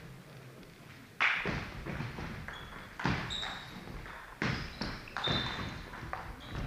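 About five sharp knocks and thuds, roughly a second apart, each trailing off in the hall's echo, with a few short high squeaks.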